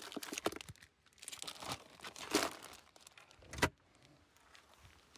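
Plastic bags crinkling and rustling as they are handled and a zip-top bag is pulled out of a cooler, with one sharp knock about two-thirds of the way through.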